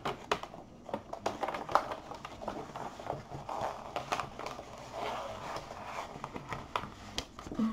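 Paper rustling and crinkling with scattered small clicks as the sheet of release paper on a diamond painting canvas is handled and pressed down.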